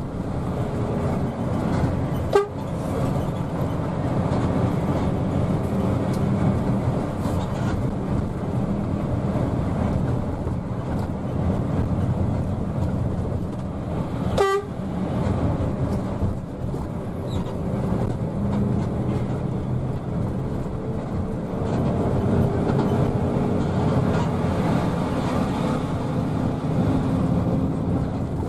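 Intercity bus running at speed, its engine and road noise heard from inside the cabin. A short horn toot sounds about two seconds in and again about halfway through.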